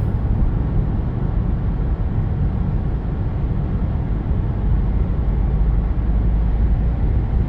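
Steady road and engine rumble heard inside the cabin of a car being driven.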